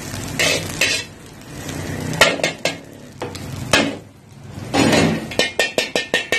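Steel ladle scraping and clinking against an iron wok and a steel bowl as fried rice is scooped out. Near the end comes a quick run of sharp taps, about five a second.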